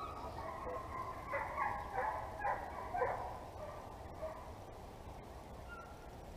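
Hunting hounds baying, a quick run of several calls between about one and three seconds in.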